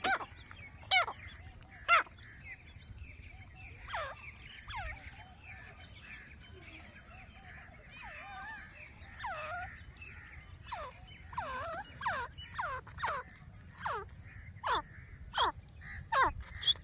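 Grey francolin calling: short notes, each sliding down in pitch, repeated every second or two and coming more often in the last few seconds.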